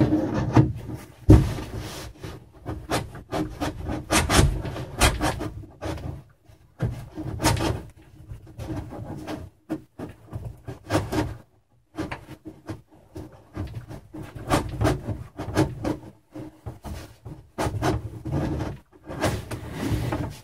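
Gloved hand pushing and rubbing against the inside of a cargo carrier's shell, which has been warmed to pop a dent out. The sounds are irregular scuffs and knocks that stop and start in short runs.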